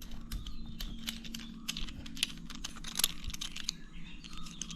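Irregular light clicks and taps of small plastic mount parts and packaging being handled, over a faint steady hum.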